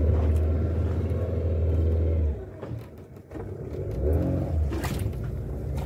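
Fishing boat's engine running, dropping off about two seconds in and picking up again, with a single knock near the end.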